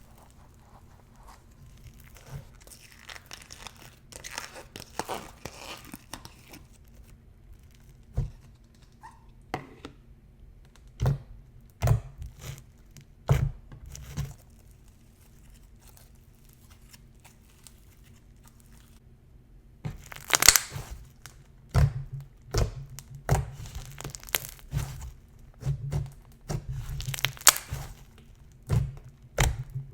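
Jelly slime packed with foam beads being squeezed and stretched by hand: scattered crunches and sharp pops at first, a quieter stretch in the middle, then dense crackling over the last ten seconds.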